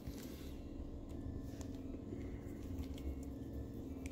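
Faint ticks of a precision screwdriver and small metal parts being handled on a linear-rail carriage block, over a steady low hum, with one sharp click at the very start.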